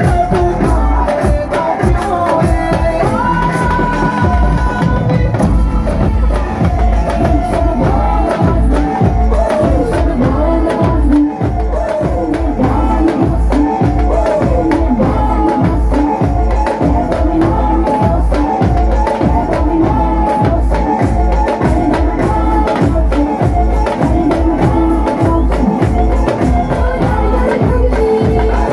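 Ensemble of Punjabi dhols, two-headed barrel drums beaten with sticks, playing a driving, fast rhythm together, with a melody line over them.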